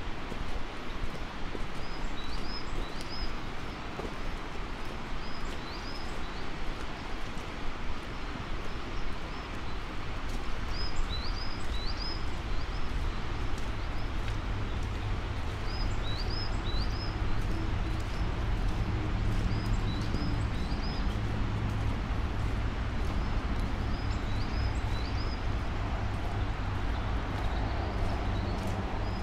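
Footsteps walking along a road, with a bird repeating short, high calls in groups of two or three every few seconds. A low steady rumble builds from about halfway through.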